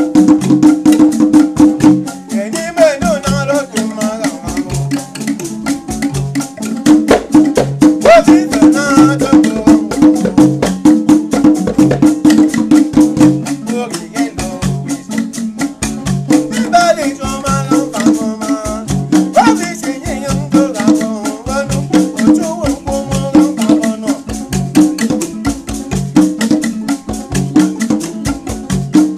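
Traditional African ensemble music: shaken rattles and percussion keep a steady fast beat under a sustained low tone, with voices singing at times.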